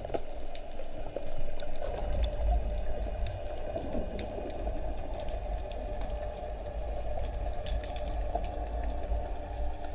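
Underwater water noise: a steady low rumble with many faint scattered crackling clicks.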